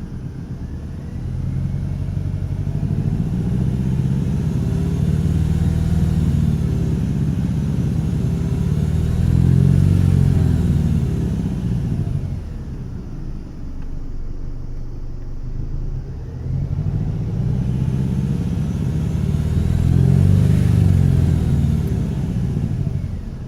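2013 Dodge Dart SE's 2.0L Tigershark four-cylinder engine, revved up and back down twice, with a rattle that sounds more like a rumble. The owner finds it most pronounced between 2500 and 3000 RPM.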